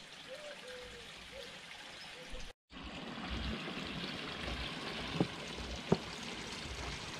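Koi pond water trickling and splashing steadily, starting suddenly after a short break, with two brief clicks near the end. Before the break, a bird calls faintly a few times.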